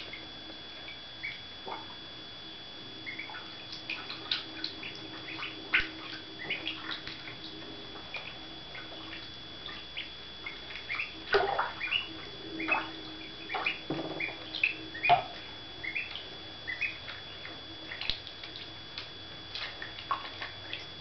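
Week-old ducklings peeping while they swim and dive, with water splashing and dripping, busiest about halfway through, over a faint steady hum.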